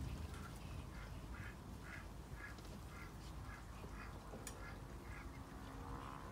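Duck giving a steady run of short quacks, about two a second, over a low background rumble.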